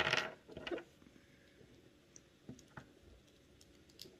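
Plastic clicks and handling noise from a small plastic security-camera mount being turned and adjusted in the hands. There is a short scuffle at the start, then a few sparse, light clicks.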